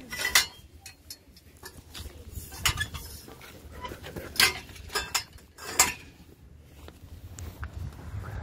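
Footsteps crunching through dry grass and brush, with about five sharp clacks and clinks scattered through, the loudest about half a second in.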